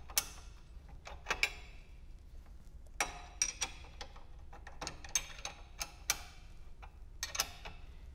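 Ratcheting wrench clicking in short runs of ticks as the flange bolts of a circulator pump are tightened, with a few sharper metal clinks of wrench on bolt.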